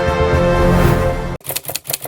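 Background music that cuts off abruptly near the end, followed at once by a rapid run of sharp clicks, about eight a second.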